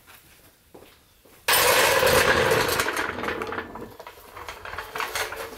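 A motorised mechanism starts suddenly about a second and a half in, running with a steady hum and rattling. It fits a garage door opener lifting the door.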